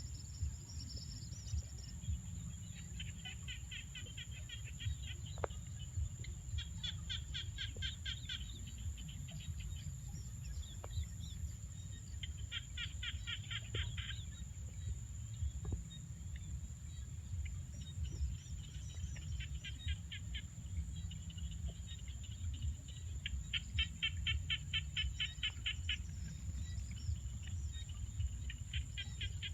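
A bird repeating a fast, dry trill of rapid clicks, each trill lasting a second or two, with a few seconds between trills. Under it run a steady thin high-pitched tone and a constant low rumble.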